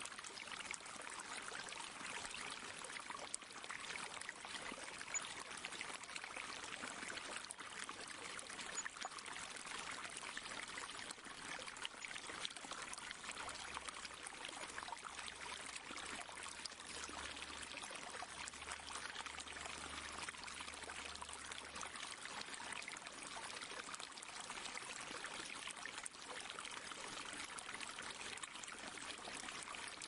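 Pond water trickling and pouring steadily, an unbroken splashing flow.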